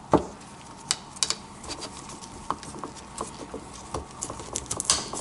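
Handling noise of gloved hands fitting a new white O-ring gasket onto a plastic oil filter housing cap: scattered light clicks and taps, a sharp tap just after the start and a quick cluster of clicks near the end.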